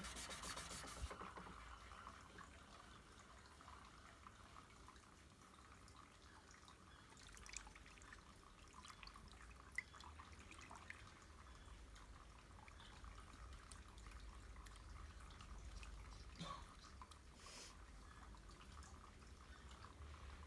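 Dry sanding of body filler stops about a second in. After that, near silence broken by scattered faint ticks and taps, one sharper tick about ten seconds in.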